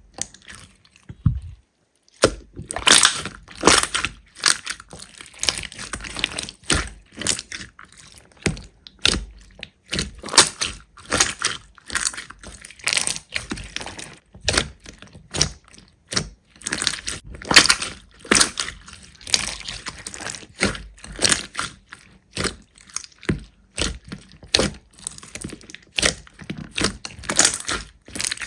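Slime being squeezed and poked, giving quick irregular crackling and popping sounds, several a second.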